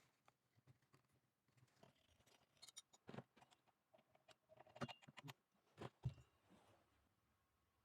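Faint, scattered clicks and light knocks of small hard parts or tools being handled, a few at a time, busiest in the middle.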